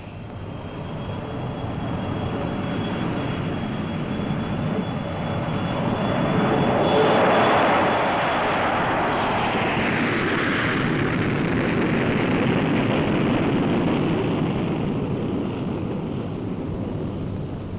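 NB-52 bomber's eight J57 turbojet engines at takeoff power as it rolls and climbs overhead: a jet roar with a thin, steady high whine, building to its loudest about seven seconds in as it passes, then slowly fading.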